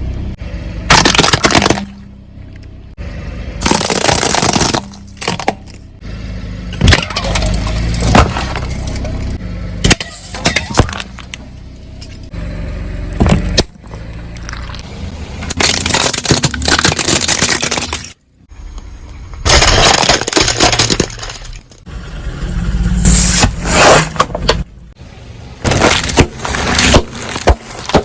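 Soft-drink bottles and other objects being crushed under a car's tyres: repeated loud crunching, cracking and breaking, in short bursts broken by abrupt cuts.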